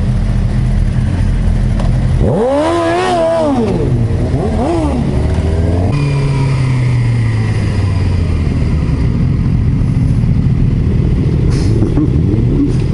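Sport motorcycle engines idling, one revved up and back down about two seconds in, with a smaller blip shortly after. After a cut, a motorcycle engine runs with its pitch slowly dropping as the bike slows, under wind noise, with a short tap near the end.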